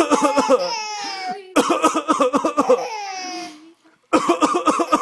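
A young child laughing in three bouts of rapid, choppy pulses, each trailing off in a high-pitched falling squeal.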